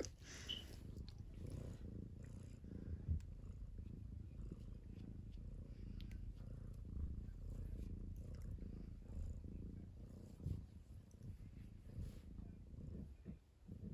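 Tabby cat purring steadily close up while being stroked: a low, continuous rumble.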